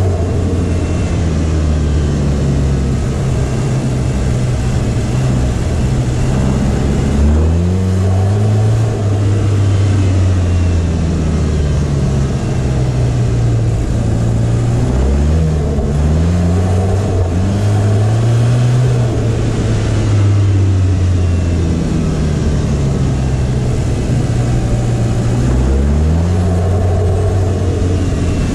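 SEAT Leon Cupra engine heard from the front bumper while driving on a snow-covered street. Its note climbs and falls several times with throttle and gear changes. A steady hiss of tyre and road noise runs underneath.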